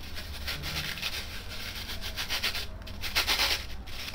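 Sandpaper wrapped around a polyurethane foam cylinder and twisted back and forth, rounding the foam: a continuous run of quick, dry rubbing strokes, loudest about three seconds in.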